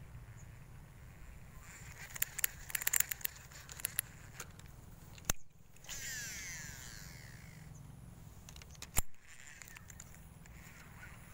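A lure cast with a fishing rod and reel: rattling clicks of tackle being handled, a sharp snap about five seconds in, then the line whirring off the spool for about a second and a half. Another sharp click comes about nine seconds in.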